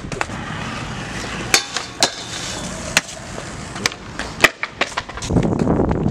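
Stunt scooter wheels rolling on concrete, with several sharp clacks of the scooter hitting the ground; the rolling gets louder near the end.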